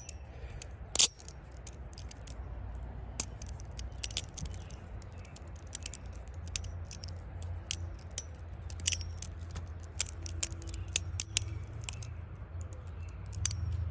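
Squid Industries Mako V3 balisong being flipped through tricks: a string of irregular sharp metallic clicks and clacks as the handles swing around the pivots and strike each other and the blade. The clearest clack comes about a second in.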